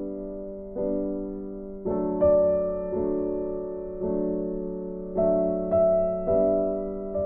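Background music: a slow, gentle electric piano melody, with soft notes falling about once or twice a second.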